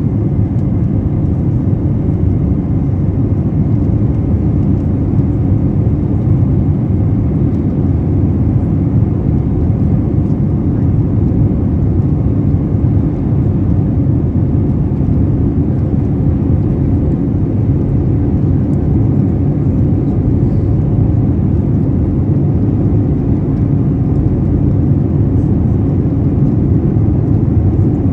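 Cabin noise of an Airbus A320neo climbing just after takeoff: the engines and rushing air make a steady, loud, deep rumble, heard from a window seat inside the cabin, with a faint steady whine above it.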